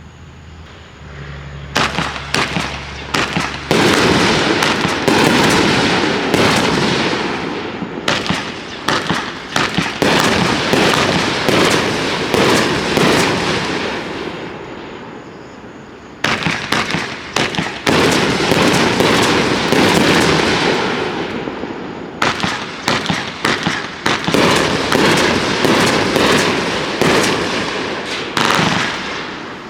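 Riakeo Max Load #45, a 25-shot 500-gram consumer firework cake, firing: a fast, dense series of loud shots and bangs. The shots begin about two seconds in, with brief lulls about halfway through and again about two-thirds through.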